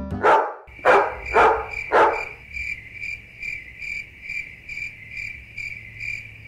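A dog barks four times in quick succession, then crickets chirp steadily, a little over two chirps a second.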